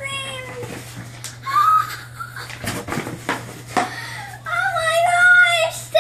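A young girl's wordless, high-pitched excited squeal, held as a long wavering note for about a second and a half near the end, with a shorter one a moment before. Earlier come a few knocks and rustles of cardboard and packaging as she digs through the box.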